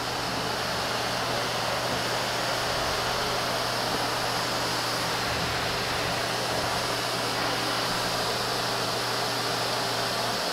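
Vacuum cleaner running steadily: a constant low motor hum under an even rush of air.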